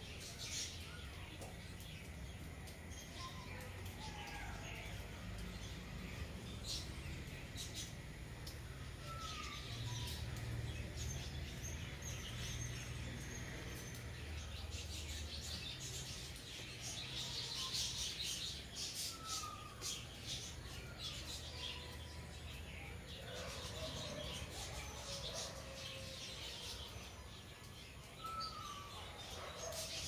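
Small birds chirping and calling: many short high chirps scattered through, with a brief sliding note every few seconds. A low rumble runs underneath.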